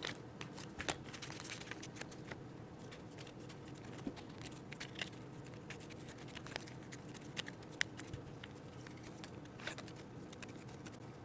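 Small decks of game cards shuffled by hand: faint, soft flicking and patter of cards, with a few light taps as decks are squared and set down on the table.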